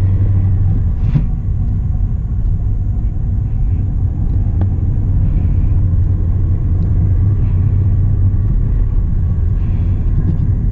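Hyundai Elantra being driven, heard from inside the cabin: a steady low rumble of engine and road noise, with a couple of faint clicks.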